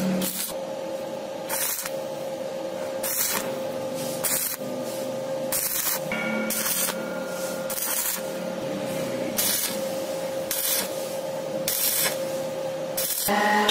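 Stick arc welding on square steel tubing, with a 2.6 mm Nikko Steel RB 32 electrode on a 900 VA Maestro welder: the arc crackles and hisses, with repeated sharp bursts about once a second.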